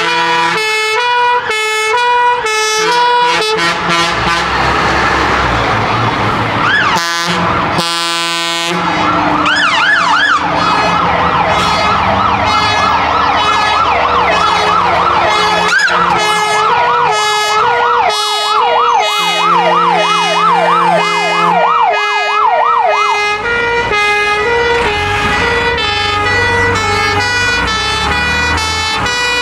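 A convoy of fire engines passing with sirens going: a two-tone siren alternating between two notes throughout, joined by a siren sweeping quickly up and down from about nine seconds in until about twenty-three seconds. Two horn blasts come about seven seconds in, over the low rumble of the trucks' engines.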